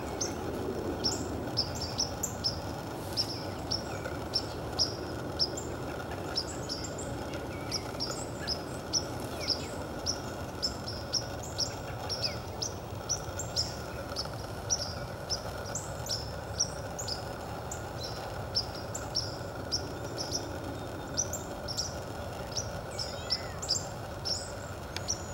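A small bird's short, high chip calls, repeated about two a second without a break, over a steady low background rumble.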